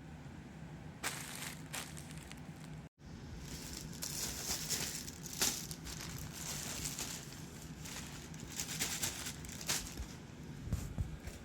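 Packaging crinkling and rustling in irregular bursts as items are handled and unwrapped, busiest in the middle stretch.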